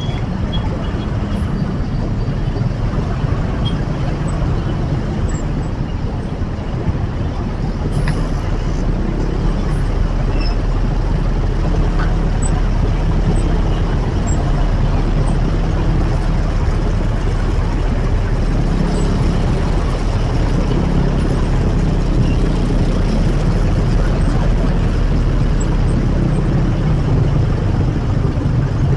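Steady din of heavy city traffic around a scooter crawling in a jam: motorcycle and bus engines running at low speed, a continuous low rumble.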